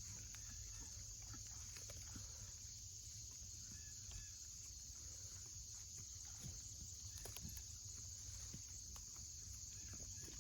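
Faint rustling and scattered small clicks of a young goat nibbling and pulling at weeds, over a steady high-pitched insect drone.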